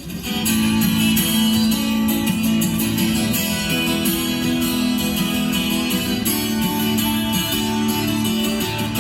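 Background music led by a strummed guitar with other instruments, no singing.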